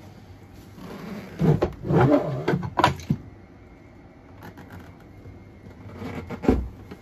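A plastic Thetford Aqua Magic IV RV toilet being lifted off its closet flange and floor seal: a cluster of rubbing, creaking and knocking noises about one and a half to three seconds in, then a dull thump near the end as it is handled.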